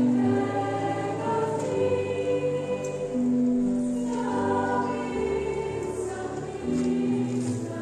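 Youth choir, mostly young women's voices, singing a Romanian Orthodox hymn in slow held chords that change together every second or so, with a cello sounding low notes underneath.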